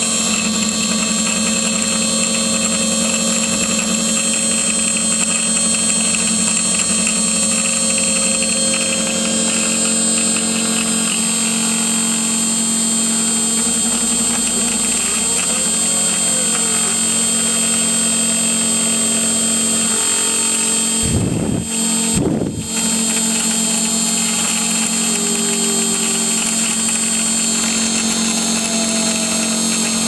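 CNC router spindle running at high speed with a small end mill milling aluminium: a steady machine whine made of several held tones over a cutting noise. The sound dips briefly twice in quick succession about two-thirds of the way through.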